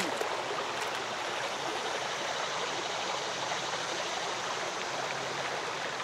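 Steady rush of water flowing over the rocks of a shallow river.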